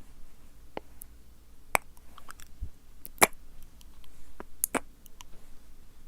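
Sticky, wet mouth sounds made close to the microphone: irregular clicks and smacks of the tongue and lips, about a dozen, the loudest about a second and a half and three seconds in.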